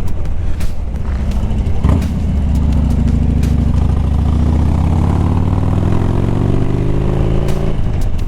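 Harley-Davidson Dyna Street Bob's V-twin engine pulling under load, its note rising steadily for about six seconds, then dropping suddenly near the end.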